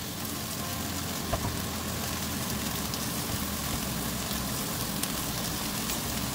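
Vegetables and pressed tofu sizzling steadily as they stir-fry in a pan with little oil, with a few faint clicks.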